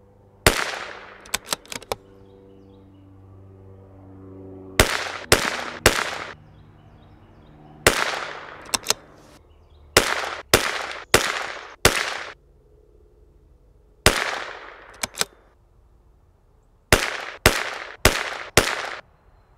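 A string of sharp .22 rimfire rifle shots from a factory CZ 457 MTR bolt-action target rifle firing RWS Special Match, mostly in quick clusters of three or four with pauses of a few seconds between.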